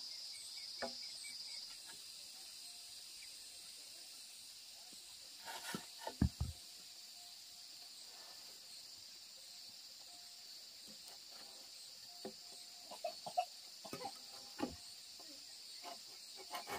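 A steady high insect chorus, with scattered light knocks and clatters in two short clusters, one in the first half and one near the end.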